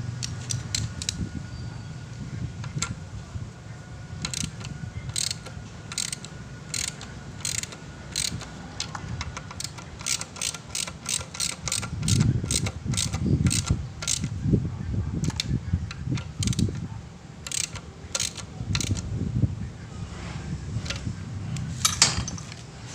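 Irregular metallic clicking and clinking of hand tools, at times in quick runs, with low handling thumps and rumbles through the second half.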